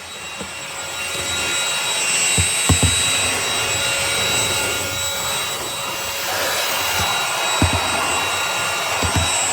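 Trucozie cordless stick vacuum running, with a steady motor whine and airflow noise that gets louder about a second in. A few short low knocks come through it.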